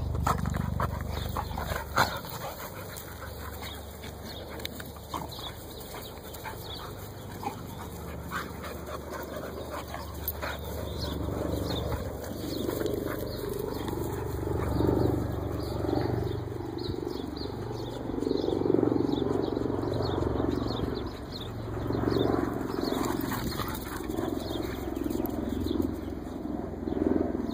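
Two pit bulls playing rough together, making dog sounds as they wrestle and chase, over a steady low rumble that grows louder in the second half.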